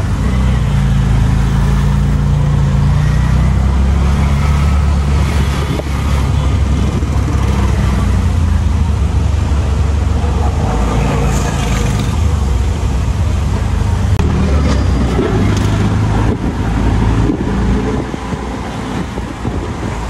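Road traffic: a motor vehicle's engine running close by, its pitch rising and falling, over steady street noise.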